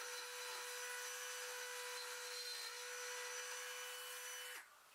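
Small power tool grinding out a slot in wood: a steady whine over a grinding hiss. Near the end it cuts off, the whine dropping briefly as it stops.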